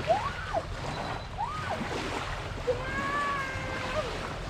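Wind buffeting the microphone over small waves lapping at a rocky shore. Over it come two short pitched calls that rise and fall in the first two seconds, and one longer held call about three seconds in.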